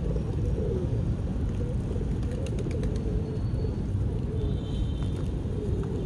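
Pigeons cooing in low, wavering notes that come and go, over a steady low rumble, with a few light clicks in the middle.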